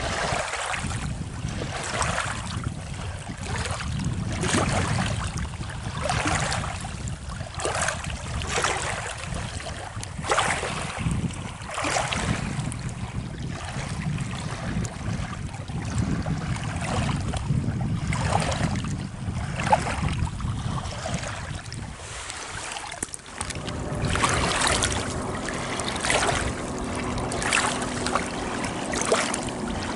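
Small lake waves lapping and splashing against the rocky shore in irregular swishes, with wind rumbling on the microphone. From about two-thirds of the way in, a faint steady hum joins.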